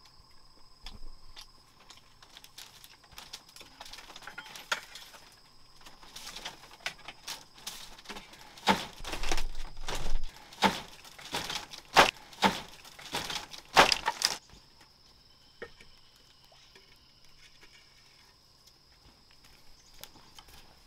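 Forest insects keep up a steady high-pitched drone. About halfway through, a quick run of a dozen or so sharp knocks and cracks comes in and is the loudest thing heard, then it stops.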